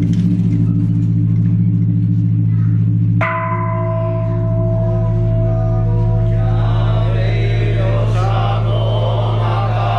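The Hiryu no Kane, a giant bronze Japanese temple bell (bonshō), rings on in a deep, steady hum after a heavy strike. About three seconds in, a second struck ring with higher tones sounds over the hum and fades. Voices begin chanting over the bell in the second half.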